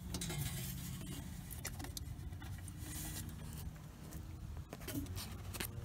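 Rustling, scraping and scattered light clicks of electrical wires and crimp connectors being handled and fed against sheet metal, over a low steady hum.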